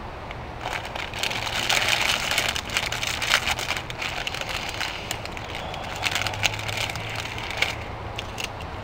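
A plastic bag of chips crinkling and crackling as it is pulled open and handled, starting about half a second in with a dense run of sharp crinkles.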